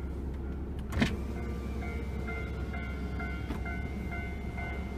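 Railway level-crossing warning bell ringing in quick, evenly repeated tones as a tram approaches, over a steady low hum. A single sharp thump about a second in is the loudest sound.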